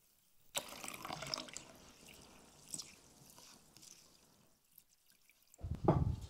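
Water poured from a clay jug into a pan of rice, starting about half a second in, then softer swishing as the rice is washed by hand in the water. Near the end comes a loud low rumble.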